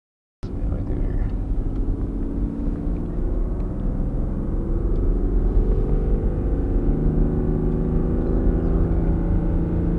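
Straight-six 6.7-litre Cummins turbo diesel of a Ram heavy-duty pickup, heard from inside the cab, droning steadily with its integrated exhaust brake engaged and holding the truck back on a steep downhill grade without the service brakes. The drone cuts in abruptly just under half a second in, and its pitch creeps slowly upward.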